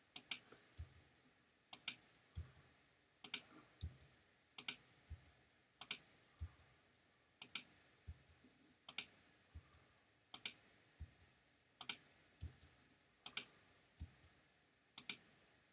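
Computer mouse clicking at a steady pace, about one click every second and a half with a fainter click half a second after each, stepping through photos one by one.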